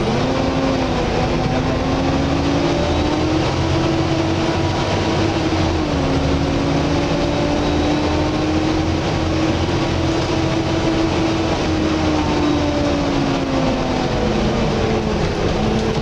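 Volvo B7TL double-decker bus under way, heard from inside the upper deck: a loud, vacuum-cleaner-like whine from the engine cooling fan over the running diesel. The whine rises in pitch, drops about six seconds in, climbs again and falls away near the end as the bus changes speed.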